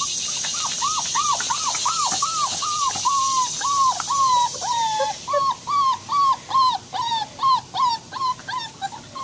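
A six-week-old German Shepherd–Labrador mix puppy whining over and over, in short, high, arching whimpers about three a second.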